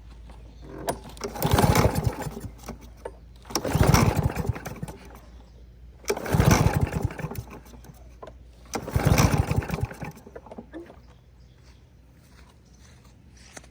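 The 5.5 hp Briggs & Stratton engine of a Craftsman push mower cranked over by its recoil pull-starter four times, each pull about a second long, without the engine catching. This is a spark test on an engine that has spark but will not fire for lack of fuel.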